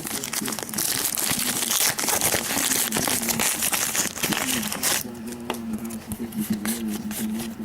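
Crinkling of a foil trading-card pack wrapper, followed by sharp clicks and rustles of cards being handled. The crinkling is densest in the first few seconds and thins to scattered clicks after about five seconds.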